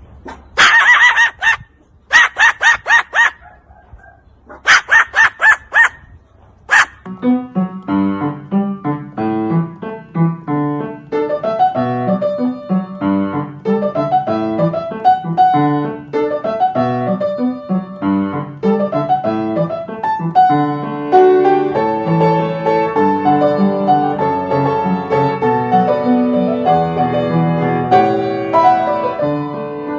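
Three loud, rapidly pulsed cackling bird calls in the first seven seconds, then piano music with held notes for the rest.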